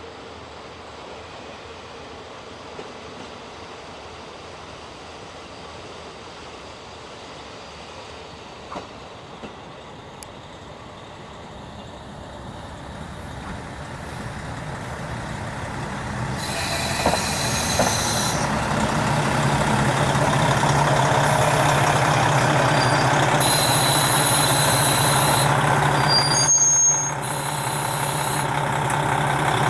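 KiHa 40 diesel railcar arriving at the platform: it grows louder from about halfway and pulls in with high-pitched brake squeal, its diesel engine running under it. A brief drop in sound comes near the end.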